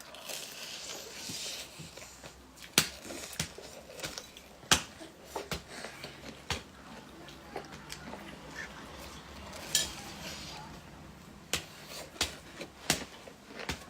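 Eating with utensils: scattered sharp clicks and knocks of cutlery or chopsticks against dishes every second or two, over faint chewing and handling noise.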